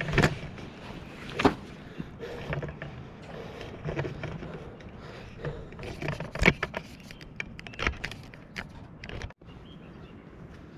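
Handling noise: irregular knocks, clicks and scrapes a second or two apart over a faint background hiss, with a brief drop-out about nine seconds in.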